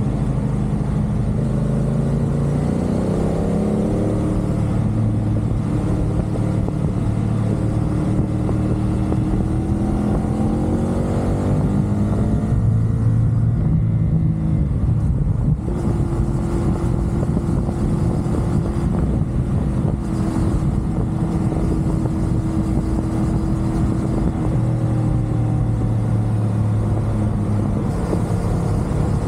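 CFMoto 450SR parallel-twin engine running at expressway speed. Its pitch climbs and steps back down several times as the bike accelerates and shifts, then holds steady for several seconds in the middle, over constant wind and road rush.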